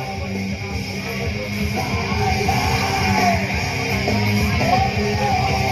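Loud rock music with a singer's voice coming in about two seconds in.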